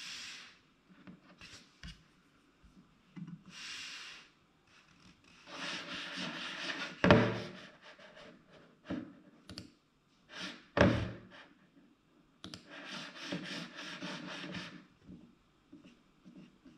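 Apple Magic Mouse 2 sliding and rubbing across a desktop in several strokes of a second or two each, with two sharp knocks, the loudest sounds, about seven and eleven seconds in.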